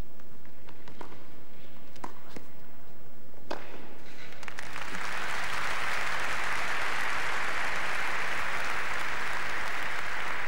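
A few sharp tennis ball strikes in a rally on an indoor court; the last and loudest comes about three and a half seconds in. A second later the crowd breaks into steady applause for the point.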